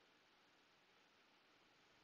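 Near silence: room tone with a faint steady hiss.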